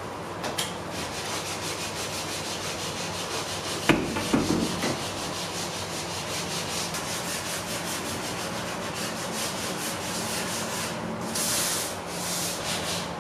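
Sandpaper rubbed by hand in rapid short strokes along the grooves of a curved wooden slat surface, a steady scratchy hiss. A sharp knock with a few lighter thumps comes about four seconds in, and the scraping grows louder and brighter near the end.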